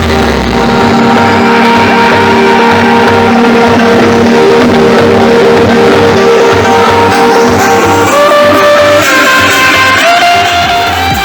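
Loud electronic dance track with a guitar-like melody over a steady pulsing bass beat, played through a car trunk sound system; a deep bass sweep falls away just as it begins.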